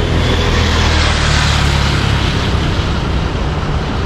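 A motor vehicle passing on the road: a low engine hum with tyre and air noise that swells about a second in and eases off after about two seconds, over steady road and wind noise.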